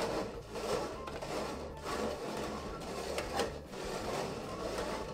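Red plastic cups being slid and shuffled across a tabletop, a steady scraping with a few sharp knocks, over background music.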